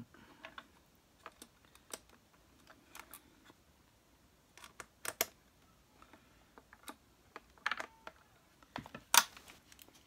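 Scattered small clicks and knocks of plastic and metal parts being handled and fitted back onto a Hoover Junior 1334 upright vacuum cleaner during reassembly, with a quick double click about halfway and the sharpest click near the end.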